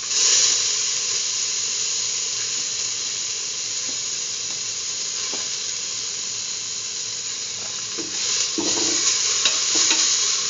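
Grated coconut, chickpeas and dried red chillies sizzling in hot oil in a steel pan, with a steady hiss; the coconut has just gone in to be sautéed. A spatula stirs and scrapes the pan, the strokes getting busier near the end.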